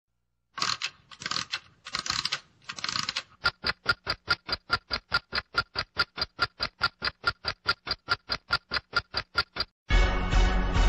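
Four short hissing bursts, then a long run of sharp, evenly spaced clicks, about five a second, like machine typing. Music comes in near the end.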